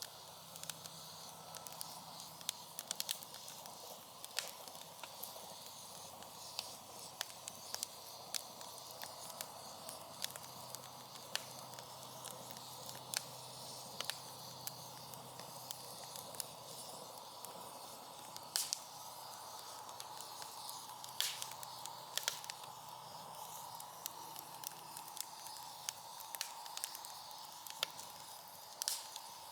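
Wood fire burning in a fire pit: a steady hiss with irregular sharp crackles and pops all through, and a few louder snaps in the second half.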